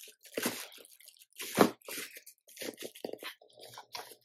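Plastic bag crinkling and thin cardboard scraping as a wrapped power brick is tugged at inside a snug box, in short irregular rustles with one louder crinkle about a second and a half in.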